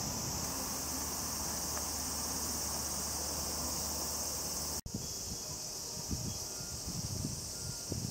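Cicadas droning in the trees: a steady, high-pitched insect chorus that carries on unchanged across a brief dropout about halfway through. In the second half, irregular low thumps sound under it.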